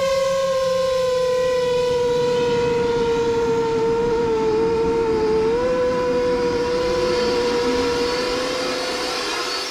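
A 7-inch long-range FPV quadcopter's motors and propellers whining at a steady pitch just after takeoff. The pitch dips slightly about four to five seconds in and steps back up, and the whine grows a little fainter near the end.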